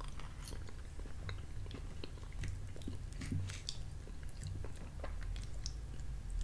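A man chewing a mouthful of chicken pot pie, with wet mouth clicks and a metal spoon scraping and clicking in the dish.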